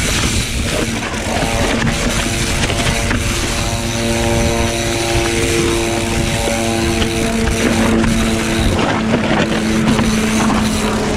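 Mountain bike rolling fast down a leaf-covered dirt trail: tyres running over dry leaves and dirt, many small knocks from the bike, and wind on the microphone. A steady humming tone runs through most of it, starting about a second and a half in and fading near the end.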